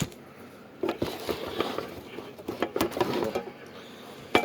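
Handling noise from a Heathkit HM-2102 meter's metal case and screws being worked loose with a screwdriver: a run of irregular clicks, rattles and scrapes, with a sharp click near the end.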